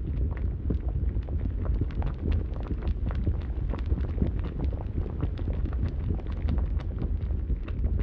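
Fire burning: a steady low rumble with frequent short crackles scattered through it.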